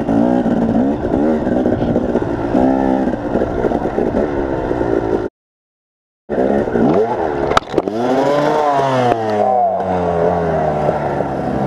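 KTM 250 two-stroke enduro bike engine revving up and down as it is ridden hard over rough trail. The sound cuts out completely for about a second, then the revving returns. A sharp knock follows, after which the engine note falls to a steady, lower running pitch as the bike goes down in the woods.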